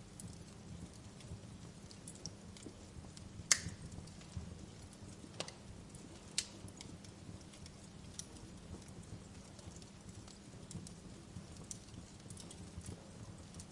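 Wood fire crackling in a fireplace: a low steady rumble of burning with scattered small crackles and a few sharper pops, the loudest about three and a half seconds in.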